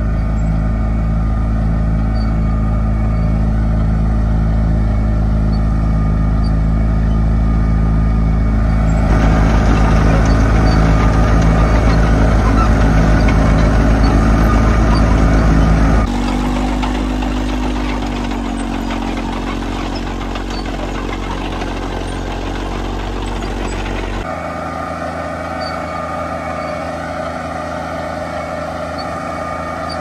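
Allis-Chalmers crawler tractors' Detroit Diesel two-stroke engines running steadily under load while ploughing. The engine note changes abruptly three times.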